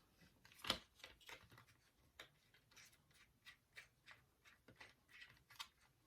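Faint, irregular clicks and light taps from small plastic toy-blaster parts and tools being handled during a teardown, with one sharper click about three-quarters of a second in.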